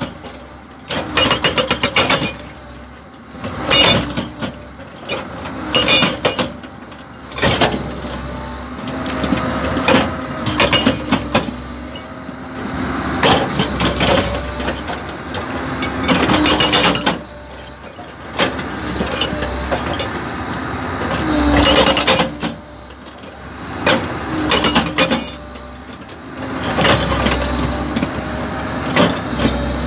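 SHS S50 hydraulic rock breaker on a Komatsu PC130 excavator, hammering rock in repeated bursts of rapid blows about a second or two long. The excavator's diesel engine runs steadily between the bursts.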